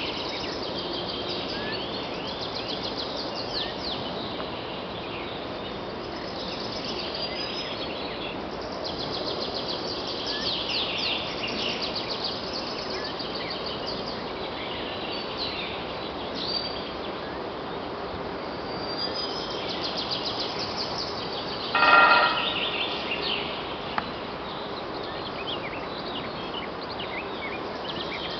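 Songbirds chirping over a steady outdoor hiss; about 22 seconds in, a woodpecker drums one short, loud roll on a steel angle iron, which rings with a metallic tone for about half a second. A single sharp tap follows about two seconds later.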